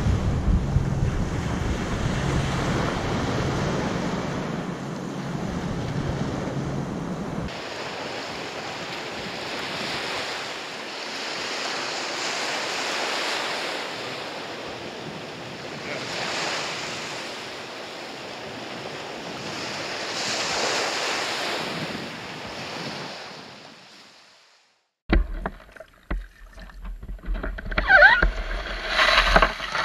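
Small waves breaking and washing up on a sandy beach, swelling every few seconds, with wind rumbling on the microphone for the first several seconds. Near the end, after a brief silence, close knocks and water noise from a plastic kayak being handled at the water's edge.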